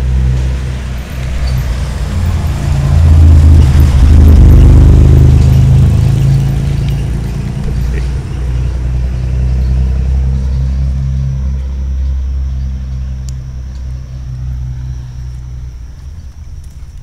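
Pickup truck driving past close by: the engine's low rumble and road noise swell to a peak about four seconds in, then fade slowly as it drives away.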